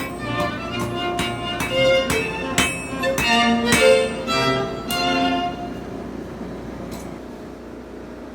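Background music with a fiddle melody and sharp strokes about every half second, fading out about five and a half seconds in.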